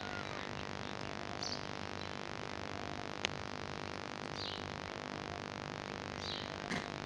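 A small bird chirping, a short high note every couple of seconds, over a steady background hiss, with one sharp click about three seconds in.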